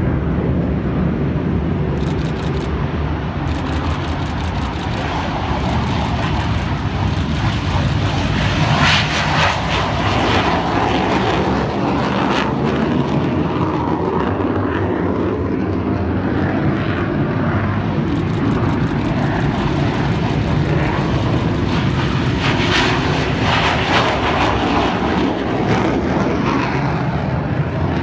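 Aircraft engine running steadily on the ground, a loud continuous drone with no pauses.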